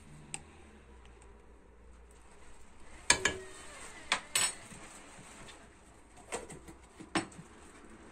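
Utensils clinking and knocking against a coated cooking pot as spices are added to raw chicken drumsticks: a sharp clink about three seconds in, then several lighter knocks spread over the next few seconds.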